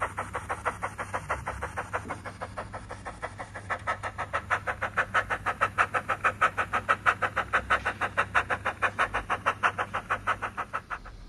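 Recorded steam-locomotive chuffs of the Ffestiniog Railway's 'Prince' from a Digitrains ZS045P2 DCC sound project, played through the speaker of a Bachmann Baldwin narrow-gauge model loco running on track. The exhaust beats are steady at about five a second, grow louder about four seconds in and ease off near the end.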